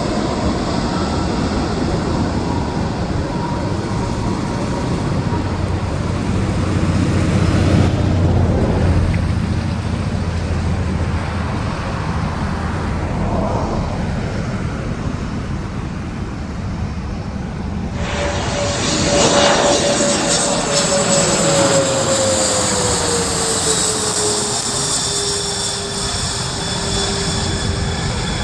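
Airliner engines: a steady rumble that eases after about eight seconds, then, with an abrupt change about eighteen seconds in, a closer aircraft with a high engine whine and a tone that drops in pitch as it passes.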